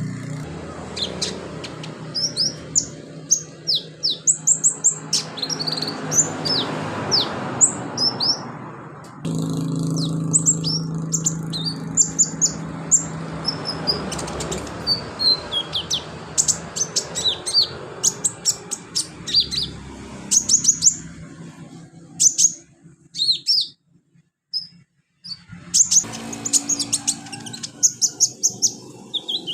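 Sunbird singing: fast runs of thin, high, mostly downward-sweeping chirps and twitters, with a short break about three quarters of the way through. A low steady hum sits under the song for most of it.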